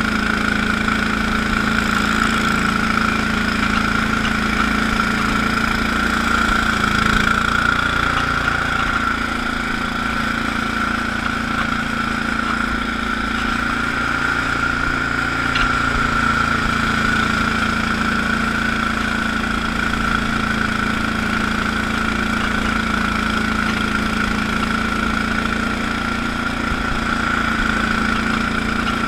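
Allis-Chalmers HB-112 garden tractor engine running steadily while the tractor drives a front-mounted Sweepster rotary broom through snow, with a steady high whine above the engine note.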